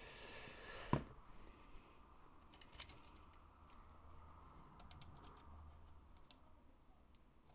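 Faint small clicks and taps of a sheet-metal model tank equipment bin being handled, with one sharper knock about a second in after a short hiss.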